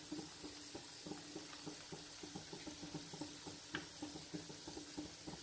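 Luqaimat dough balls frying in hot oil in a shallow pan, a faint steady sizzle with many small, irregular crackles and pops.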